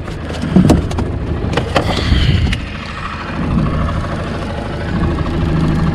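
A small boat's motor idling steadily, with a few knocks in the first two seconds.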